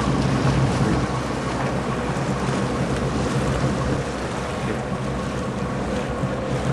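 Sea Ray cruiser's engines running steadily underway, a constant low drone, with wind on the microphone and water rushing past the hull.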